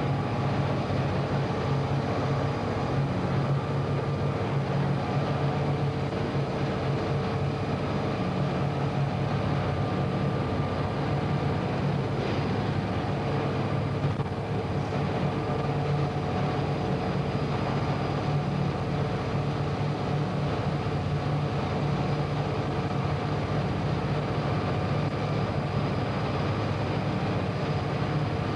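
Diesel locomotive under way, heard from aboard: a steady engine hum over the even noise of the moving train.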